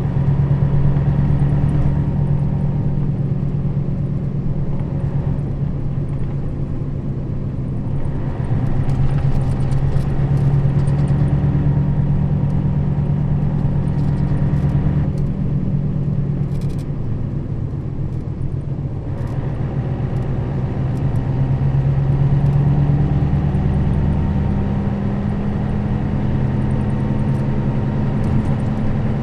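Nissan Diesel KL-RA552RBN city bus's diesel engine running under way, heard from inside the bus. The engine note rises and falls several times as the bus changes speed.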